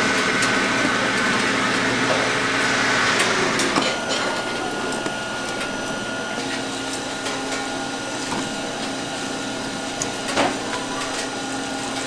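Steady hum of automatic fish-cake-making machinery running, dropping slightly about four seconds in, with a few light knocks as fish-cake sheets are handled in a stainless-steel tray.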